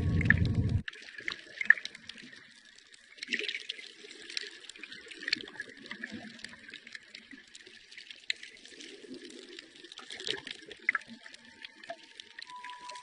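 Water bubbling and trickling with scattered crackling clicks. A loud low sound cuts off within the first second, and a steady high tone comes in near the end.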